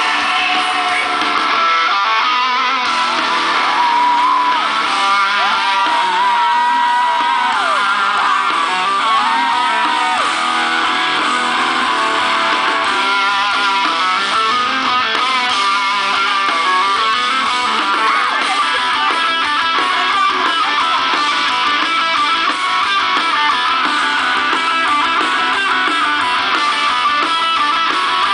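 Rock music led by electric guitar, loud and continuous, with bending lead-guitar notes in the first ten seconds or so.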